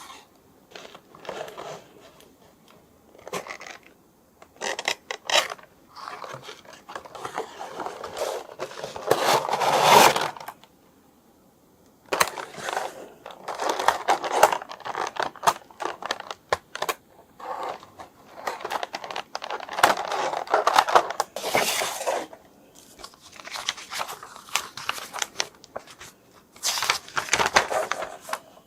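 Toy packaging being handled and opened: uneven spurts of crinkling plastic, tearing and scraping, with small clicks and short pauses between them.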